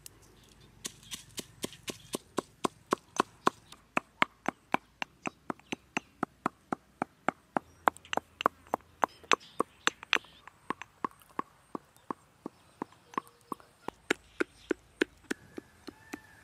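A steady run of sharp, evenly spaced knocks or chops, about three to four a second, starting about a second in and going on until near the end.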